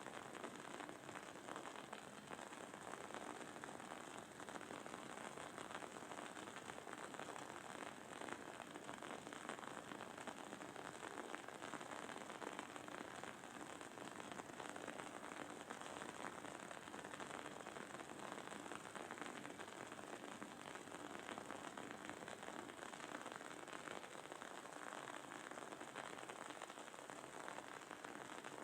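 Wooden candle wick burning with a faint, steady crackling and sizzling, a dense run of tiny pops without pause.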